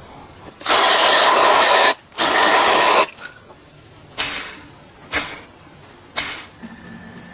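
Hissing spray in bursts: two long blasts of about a second each, then three short ones about a second apart.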